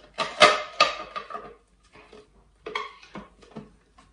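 Clear acrylic Smart Store fridge organizer box and its lid being handled, clicking and knocking together in short runs. The loudest clatter comes about half a second in, and a few lighter clicks follow near three seconds.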